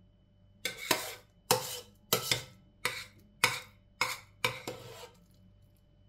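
Metal spoon scraping and knocking against a stainless steel pot while scooping out mashed potato. It makes a run of about eight quick, sharp scrapes.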